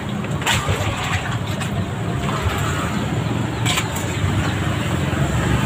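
Road traffic running past, a steady low engine drone with road noise, with two sharp clicks or knocks, one about half a second in and one near four seconds in.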